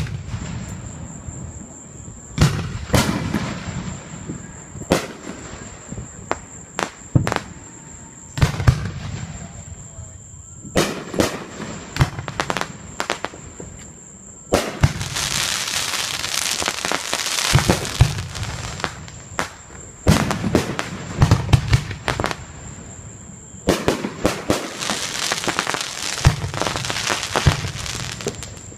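Fireworks display: aerial shells bursting in a run of sharp bangs, with two long stretches of dense crackling from crackle-effect shells, the first about halfway through and the second near the end.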